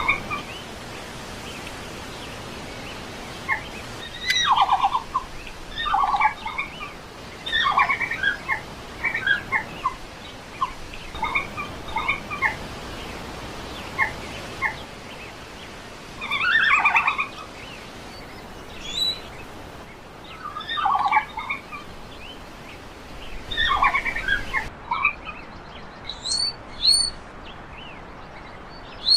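Red panda calling: repeated short bouts of quick, high, squeaky twittering notes, about ten bouts with pauses of a second or more between them.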